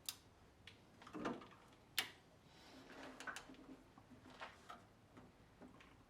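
A few sharp clicks and light taps of hand tools and parts being handled on the engine, with a duller knock about a second in.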